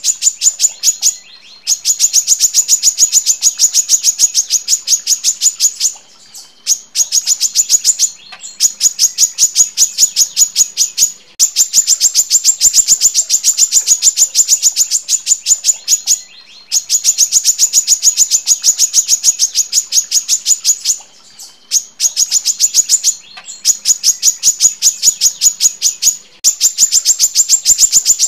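Female brown-throated sunbird (kolibri kelapa) singing long, dense runs of rapid, high chirping notes. The runs last a few seconds each, with short breaks between them.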